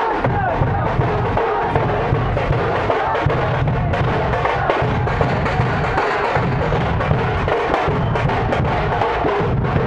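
Several large double-headed barrel drums (dhol-type procession drums) beaten with sticks in continuous, dense drumming, with no break.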